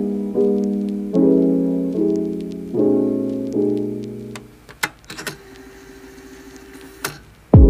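Background piano music playing a slow run of chords. It stops about four seconds in, leaving a few clicks and a faint steady tone, and comes back louder just before the end.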